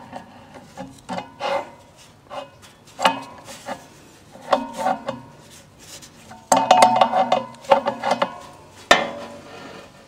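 Adjustable wrench and the steel blower wheel hub of a furnace blower clinking, rattling and scraping as the rust-stuck wheel is twisted back and forth on the motor shaft to break it loose. The clinks come in irregular clusters, the loudest a little past the middle.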